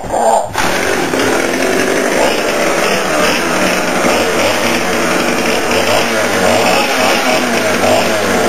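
Gas chainsaw running, its engine revving up and down.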